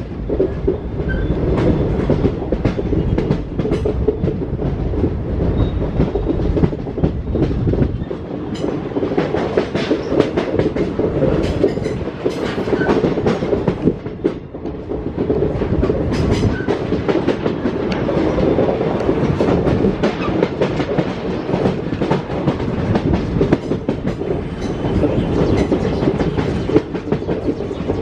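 Passenger express train running at speed, heard from on board: a steady rumble with the clickety-clack of wheels over rail joints.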